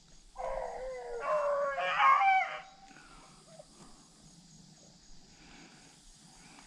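Beagles baying on a rabbit's trail, more than one dog crying at once for about two seconds, then stopping. Their cry is the sign that the pack is running the rabbit's scent.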